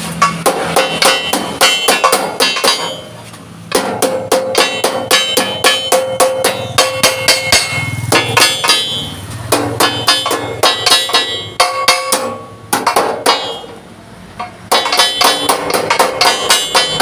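Hammer beating on a thick steel plate in quick blows, about four or five a second, each with a metallic ring. This is the plate being hammered into shape, and the blows pause briefly a couple of times.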